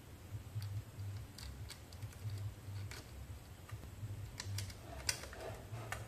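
Faint, scattered small clicks and ticks of wires and a screwdriver being handled at the plastic screw-terminal block of a safety relay, over a low steady hum.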